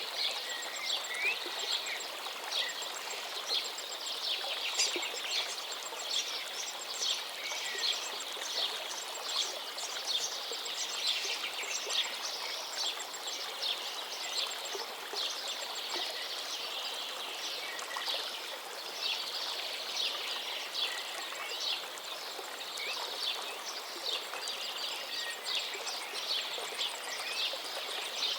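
A river flowing with a steady rush, and many small birds chirping over it in quick, short calls throughout.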